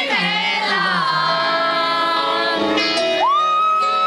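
Live band music at the start of a song, with the audience screaming and cheering over it; a high held note comes in about three seconds in.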